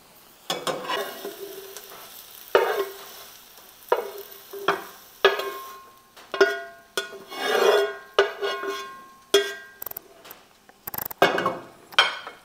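A utensil stirring and scraping eggs and ground beef around a frying pan on a lit burner, in repeated separate scraping strokes, roughly one a second.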